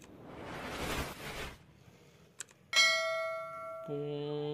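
Subscribe-button sound effect: a swelling whoosh, a short click, then a bright bell ding that rings out and fades. Near the end a steady humming tone starts and holds.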